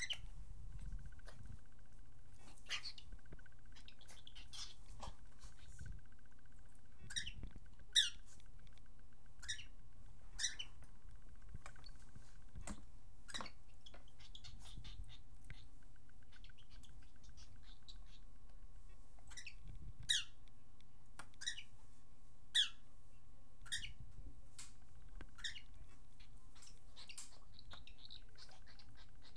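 Cockatiel giving short, sharp chirps, each a quick downward sweep in pitch, at irregular intervals through the stretch. Faint clicks come in between.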